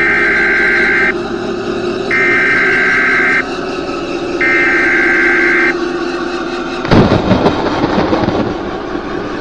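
Emergency Alert System SAME header: three identical bursts of data warble, each about a second long with a second's gap between. They sit over a steady low drone. About seven seconds in, a sudden loud crash breaks in and rumbles away over a couple of seconds.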